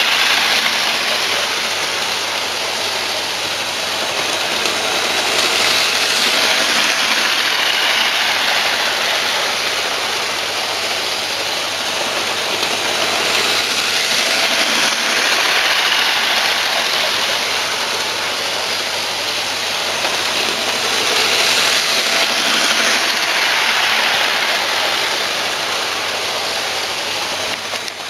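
Model train running along the layout's track close to the microphone: a steady rushing whir of motor and wheels that swells and eases slowly.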